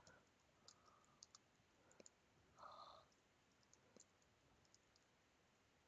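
Near silence with faint, scattered computer keyboard clicks as a command is typed.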